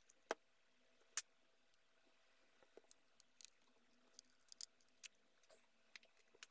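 Sharp plastic and glass clicks as a cracked touch screen is pried away from a Samsung Galaxy Tab 3's frame: two loud snaps in the first second or so, then a scatter of small ticks and crackles.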